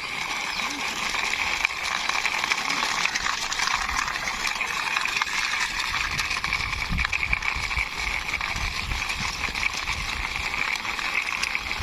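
Plastic wheels of a toy vehicle rolling as it is pushed by hand along a concrete wall: a steady rolling rasp, with light knocks from about four seconds in.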